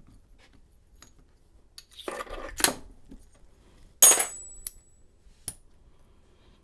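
Small metal lock parts and tools clinking on a work surface during rekeying of a pin-tumbler lock cylinder: a short rattle about two seconds in, a sharper clink with a brief high ring about four seconds in, and a single click near the end.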